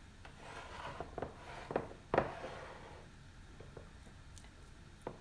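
A utensil scraping and pressing a soft topping across rice in a dish, with a few light knocks against the dish, the sharpest about two seconds in.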